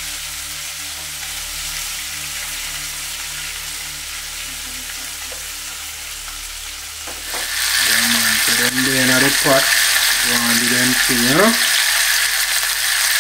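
Whole fish frying in hot oil in a frying pan: a steady sizzle that gets much louder about seven seconds in, while the fish are turned with a spatula.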